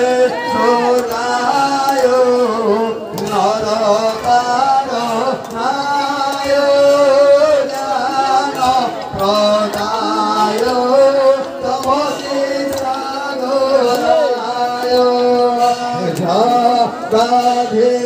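Devotional song: a male voice sings a melody over a steady drone.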